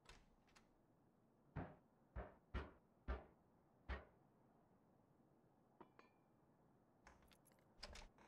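Five sharp knocks at a wooden door, irregularly spaced over about two and a half seconds, followed later by light clicks and rattles from the door's latch.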